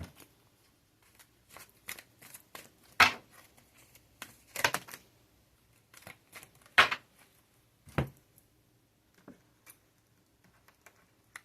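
Tarot cards being shuffled and handled on a table: irregular light clicks and short papery scrapes, with four louder slaps or riffles spread through the middle.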